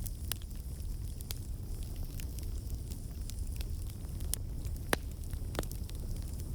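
Campfire burning, crackling and popping over a steady low rumble, with the sharpest pop about five seconds in.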